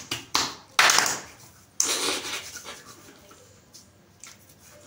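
Hands slapping alcohol-based aftershave onto the face and neck: three sharp slaps in the first two seconds, each with a short fading hiss, then quieter patting and rubbing.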